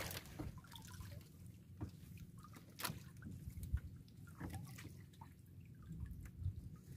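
Faint drips and small ticks of water falling from a wet trammel net as it is lifted and picked by hand, with a few sharper clicks, over a low steady rumble.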